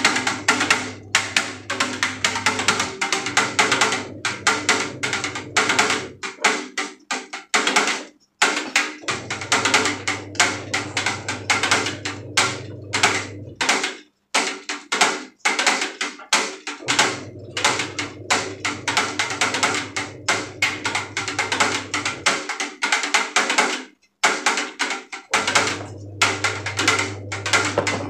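Background music with a busy percussive beat over a low bass line that drops out and comes back every few seconds.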